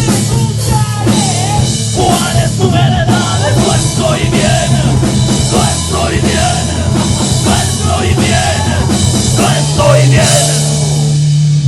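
Rock band playing loud in rehearsal, with drums and cymbals driving the song. It ends on a held chord near the end.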